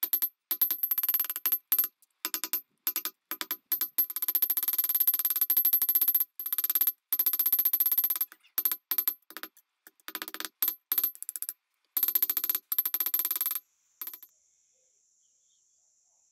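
Sledgehammer beating a hot strip of bearing steel on a steel anvil: rapid runs of ringing metallic blows in bursts with short pauses, stopping about 14 seconds in.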